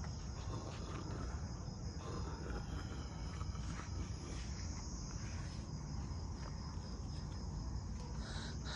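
Night insects chirring steadily in a continuous high-pitched band, over a low rumble.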